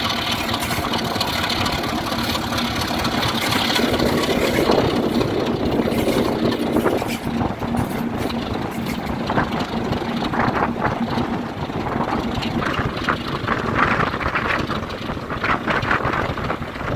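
Class 33 diesel locomotive's Sulzer eight-cylinder engine running steadily as it hauls the train, mixed with the rumble of the wheels on the track. Gusts of wind on the microphone come in during the second half.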